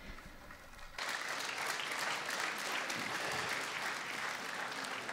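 A large audience applauding, starting about a second in and holding steady.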